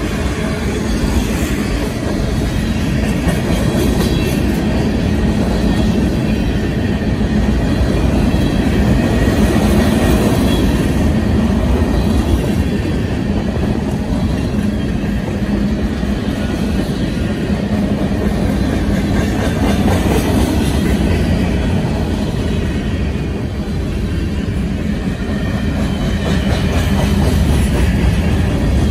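Freight cars of a long mixed manifest train rolling past at speed: the steady rumble and clatter of steel wheels on the rails.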